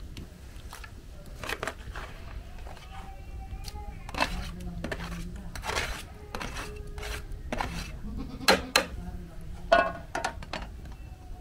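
Goats bleating now and then, over sharp clinks and knocks of a metal spoon against a plastic colander and a metal cooking pot as fried pumpkin is scooped across. The loudest knocks come twice, about three quarters of the way through.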